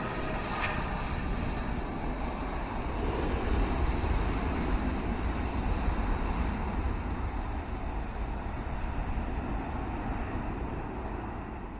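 Airbus A320 jet engines roaring on the landing rollout, swelling about three to six seconds in and then fading as the airliner slows and draws away down the runway.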